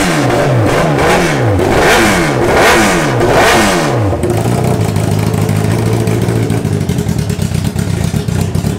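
Honda CBR1000RR inline-four engine, swapped into a Honda Ruckus scooter, blipped through quick rev-ups about two a second. About four seconds in it drops back to a steady, choppy idle.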